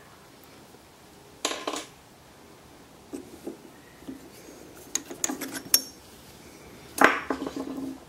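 Metal clinks and knocks of a Forstner bit being loosened and taken out of a drill press chuck: a sharp clink about a second and a half in, a flurry of small clicks around the middle, and the loudest clank near the end with a short ring after it.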